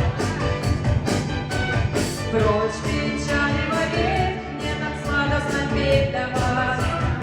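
Song playing: a woman singing a gliding melody over instrumental backing with a steady beat.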